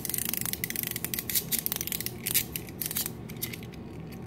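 Small clockwork toy tractor being wound by hand: a fast run of ratchet clicks from its winding mechanism, thinning out about three and a half seconds in.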